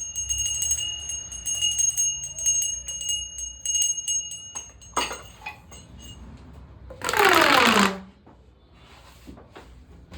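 Percussion sound effects. Jingling metal with a steady high ring runs for the first four seconds or so, and a sharp knock comes about five seconds in. About seven seconds in, a loud pitched sound slides downward for about a second, followed by a few soft taps.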